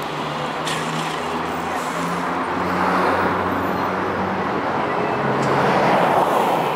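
City street traffic noise: vehicles running along the road with a steady low hum, swelling about three seconds in and again near the end.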